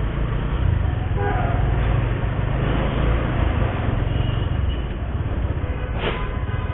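Motorcycle engine running amid heavy traffic, with a steady low hum and wind-like noise on an action camera's microphone. A brief falling pitched sound comes about a second in, and a short sharp sound near the end.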